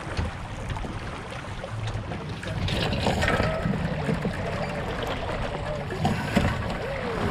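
Wind buffeting the microphone and water rushing along the hull of a small sailboat under way, growing louder about three seconds in as the boat tacks.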